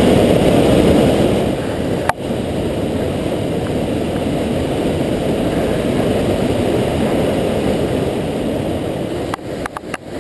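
Floodwater pouring over a low-head dam spillway and churning below it: a loud, steady rush of water. A sharp click comes about two seconds in, after which the rush is slightly quieter, and a few clicks come near the end as it begins to fade.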